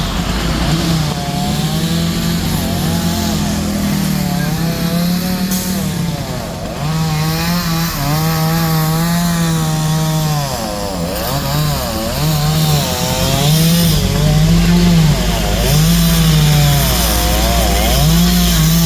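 Chainsaw engine revving up and dropping back over and over, about once a second, as when cutting through timber, over a steady low engine rumble that grows louder about two-thirds of the way through.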